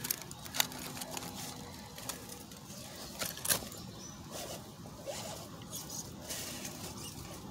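Redcat Gen7 RC rock crawler's electric motor whining faintly as the truck crawls up over boulders, with a few sharp clicks and knocks of its tyres and chassis on the rock.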